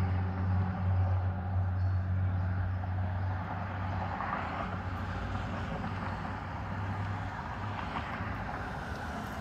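Low, steady engine drone of a large vehicle, dying away over the first few seconds, then the hiss of passing car traffic at an intersection.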